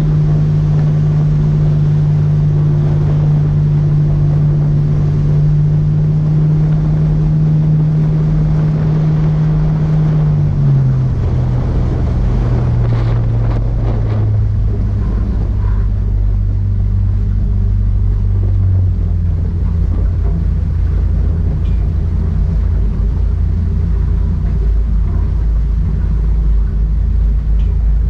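Motorboat engine running under way, with wind buffeting the microphone and water rushing past. The engine note steps down in pitch about ten seconds in and again about two-thirds of the way through.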